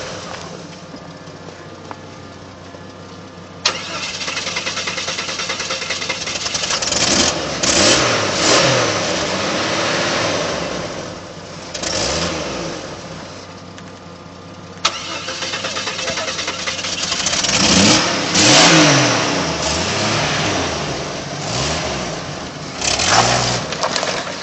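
Jeep Wrangler's engine working hard as the lifted 4x4 crawls over rock, revving up and down in repeated bursts. It cuts in sharply twice after quieter spells.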